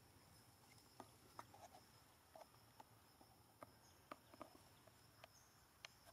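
Near silence: a faint, steady high insect drone, with about a dozen scattered faint clicks.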